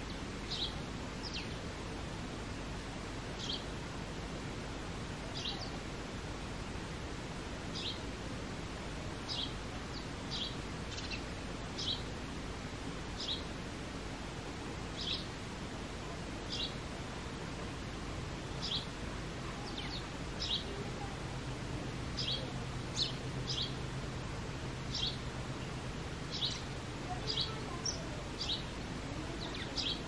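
Male house sparrow giving single short cheep notes, one every second or two at first and coming more often in the second half, over a steady background hiss.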